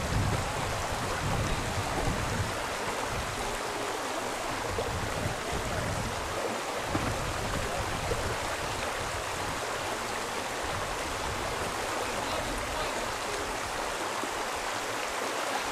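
River water flowing, a steady, even rush with no breaks.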